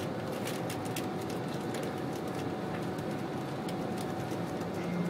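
Cabin noise of an electric express train running at speed: a steady rumble and rush of wheels on rail, with light irregular clicks.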